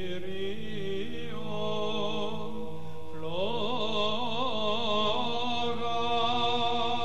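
Sung chant over a steady held drone. The melody voice glides up to a higher note about three seconds in, then carries on in long, wavering, ornamented notes.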